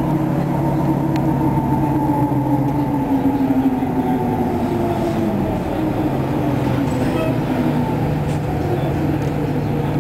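2012 Nova Bus LFS city bus under way, heard from inside the cabin: its Cummins ISL9 diesel engine and ZF EcoLife automatic transmission run with a steady hum. The pitch of the hum falls slowly over the first several seconds, then holds steadier.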